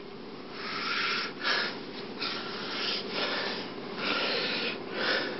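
Breathy noises from a person: a series of about six huffing puffs or snorts, each about half a second long.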